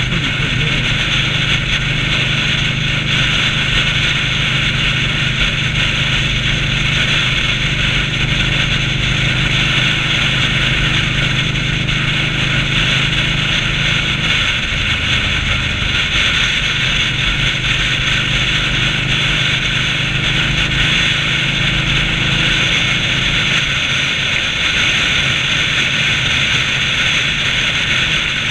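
Indian Scout V-twin motorcycle cruising at steady highway speed: a constant low engine drone under loud, even wind and road noise.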